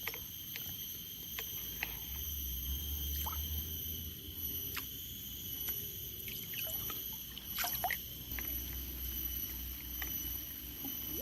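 Tropical riverside ambience: a steady high-pitched insect drone, with scattered short clicks and brief chirps and a low rumble.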